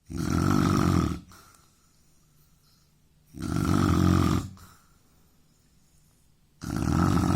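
A man snoring loudly: three rough snores, each about a second long, coming about every three seconds with quiet breathing gaps between them.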